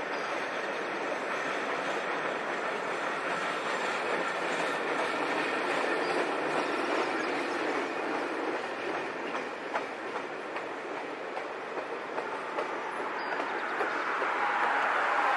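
Conrail mixed freight train of boxcars, covered hoppers and tank cars rolling steadily past, a continuous rumble of steel wheels on rail with clickety-clack over the joints. Near the end a wheel squeal swells in.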